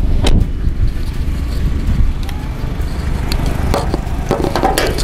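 Honda HR-V's four-cylinder engine idling through an aftermarket full-system exhaust, a steady low rumble. A single knock comes about a third of a second in, and a run of clicks and rattles near the end as the bonnet latch is released.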